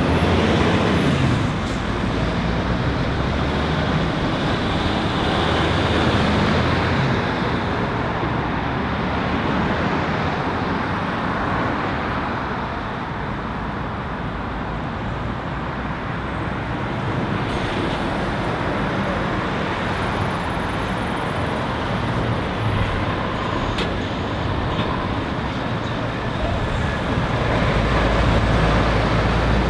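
Roundabout traffic: heavy lorries' diesel engines pulling round, with cars and tyre noise in between. A Scania articulated lorry's engine is loudest as it passes close near the end, and another lorry is heard in the first few seconds.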